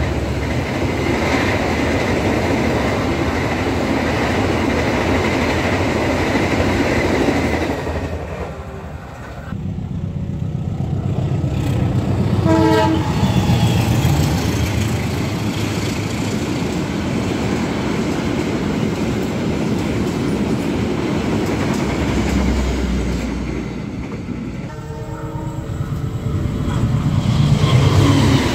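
Indonesian passenger trains passing at speed: a steady rumble and rattle of coaches on the rails with clickety-clack of the wheels. A short horn note sounds about twelve seconds in, and the noise dips briefly twice as one train gives way to another.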